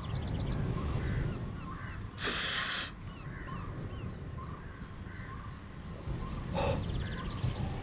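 Outdoor ambience: a low wind rumble with small birds chirping now and then. About two seconds in there is a sharp rush of breath, like a hard sniff or exhale, and a weaker one near the end.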